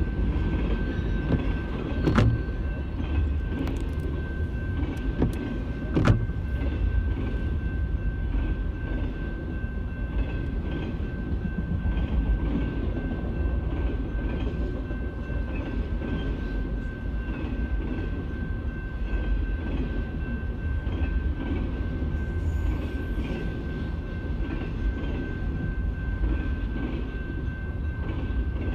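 Long freight train of tank cars and autorack cars rolling past at a level crossing, a steady low rumble and wheel clatter heard from inside a stopped car. A steady high-pitched tone rides over it, and two sharp clanks stand out about two and six seconds in.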